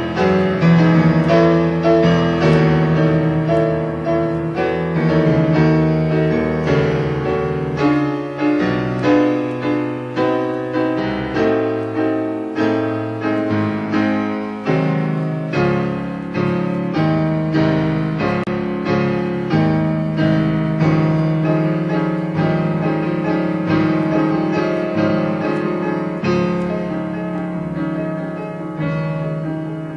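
Solo piano playing a slow classical-style sonata movement, with a steady run of struck, ringing notes. The low bass notes drop out from about eight seconds in and come back about halfway through.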